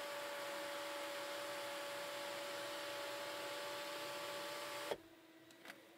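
Electric motor of the Chery Tiggo 8's panoramic-roof sunshade running as the shade retracts, a steady even whine. It stops with a click about five seconds in, and a faint tick follows shortly after.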